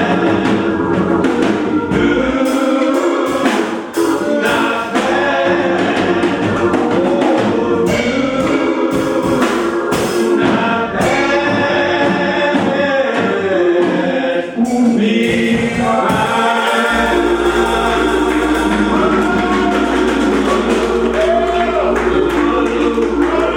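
Gospel choir singing a church song with accompaniment, with sharp percussive strokes in the first part; a low steady bass note comes in about seventeen seconds in and holds.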